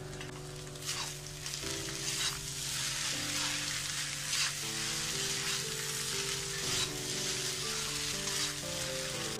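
Egg noodles and vegetables sizzling in a hot kadai while being tossed and stirred with a spatula, with a louder scrape or toss every couple of seconds.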